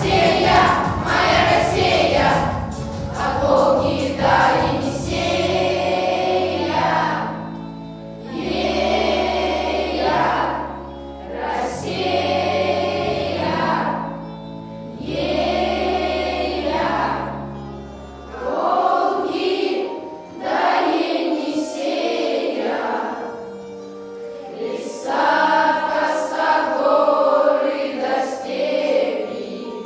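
A children's class choir singing a song in unison in phrases over a musical accompaniment. The deep bass line of the accompaniment drops out about two-thirds of the way through.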